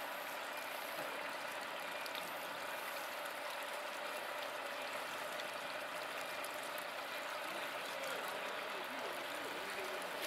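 Floodwater off a flooded street pouring steadily down into an open manhole, a continuous splashing rush of water.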